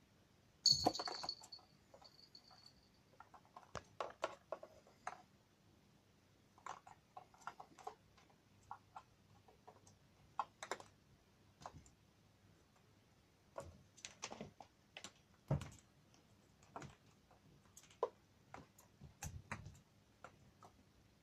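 A kitten at play: faint, scattered rustles and light taps from a crumpled paper-like sheet and a swinging hanging toy, coming in short clusters. About a second in, the loudest rustle comes with a brief high ringing tone.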